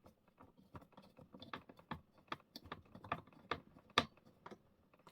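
A screwdriver turning a CPU cooler's mounting screw clockwise into the motherboard bracket: a run of small, irregular clicks and ticks, the sharpest about four seconds in.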